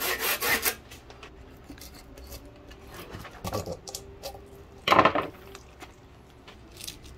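Knife blade scraping over the skin of a whole albacore tuna in rapid rasping strokes, about six a second, that stop about a second in. Then quieter cutting and handling sounds on the wooden board, with two louder scrapes of the knife through the skin about halfway through, the second the loudest.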